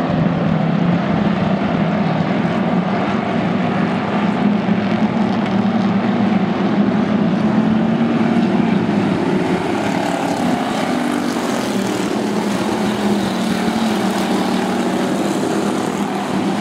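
A field of hobby stock race cars running at racing speed, their engines blending into one loud, steady drone with slight rises and falls in pitch.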